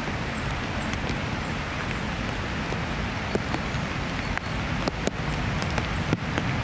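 Heavy rain falling steadily, an even hiss with scattered sharp ticks of single drops landing close by.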